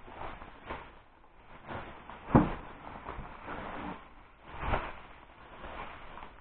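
Bubble wrap rustling as a bubble-wrapped box is handled, with one sharp thump about two and a half seconds in and a softer knock just before five seconds.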